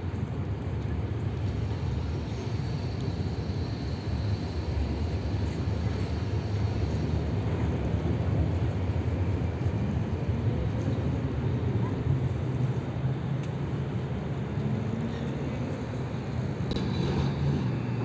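Tram pulling into a stop amid street traffic: a steady low rumble of wheels on rails and traffic, with a faint electric motor whine that shifts in pitch. A sharp click comes near the end.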